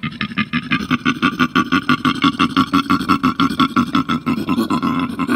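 Koala bellowing: a deep, snore-like call made of fast, even rhythmic pulses that carries on throughout.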